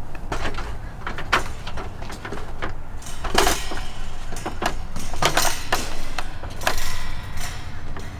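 Shoes knocking and clanking on the metal rungs of a fiberglass extension ladder as a man climbs it, an irregular series of knocks with louder clanks a little past three seconds, around five and a half seconds and near seven seconds.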